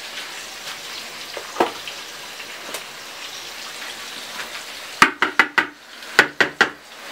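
Steady sizzling hiss of rib-eye steak frying in a pan. About five seconds in it gives way to a quick run of roughly eight sharp knocks and clatters over two seconds.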